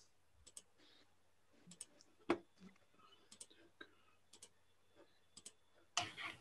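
Faint, scattered clicking from a computer being operated, several clicks coming in quick pairs like double-clicks, with one louder knock about two seconds in and a brief rustle near the end.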